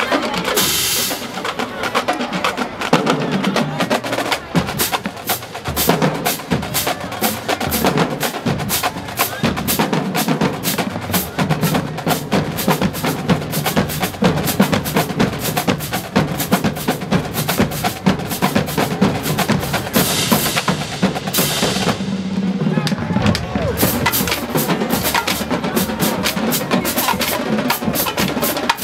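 Marching band drumline playing a fast, dense cadence on snare drums and bass drums, with rapid snare rolls over the deeper bass drum beats and a brief break about 22 seconds in.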